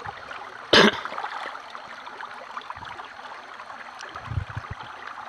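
Steady rush of flowing river water. A short, sharp noise about a second in, and a few low, dull thumps near the end.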